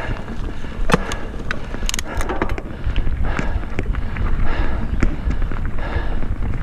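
Mountain bike riding along a dirt singletrack: a steady low rumble of tyres and ride noise, broken by many sharp rattles and clicks from the bike jolting over the trail, several close together about two seconds in.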